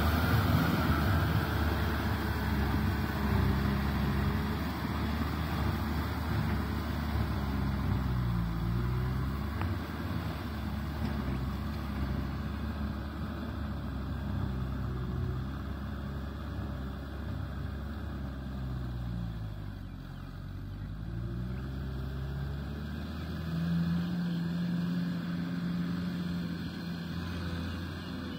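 A Kubota M6040SU tractor's four-cylinder diesel engine runs steadily under load, pulling a rotavator through wet, muddy soil. It is loudest at first, grows fainter until about two-thirds of the way through, then comes closer again.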